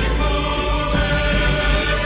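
A string orchestra and choir performing a Romanian patriotic song live, holding sustained chords that change about a second in.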